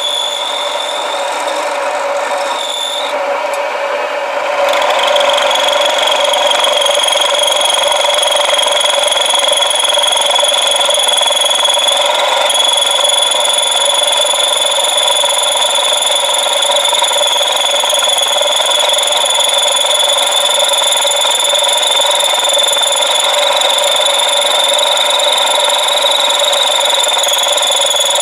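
Milling cutter facing a block of rough hot-rolled steel, a steady high-pitched machining whine that gets louder and steadier about four and a half seconds in as the cut takes full load.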